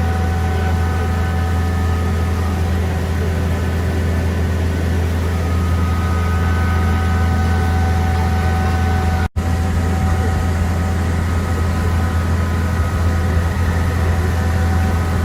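Engine of an amphibious duck tour vehicle running steadily, a deep drone with a few steady whining tones above it, broken by a momentary gap about nine seconds in.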